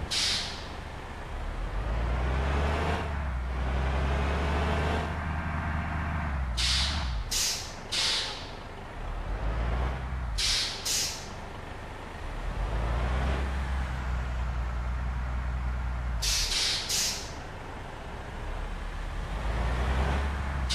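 Heavy bus engines running with a low rumble that swells and fades as vehicles pass. Over it come about eight short, sharp hisses of air from air brakes, in twos and threes.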